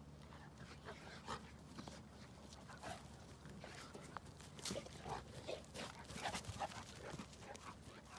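Two Boerboel dogs play-wrestling: many short vocal noises from the dogs, with scuffling clicks, getting busier in the second half.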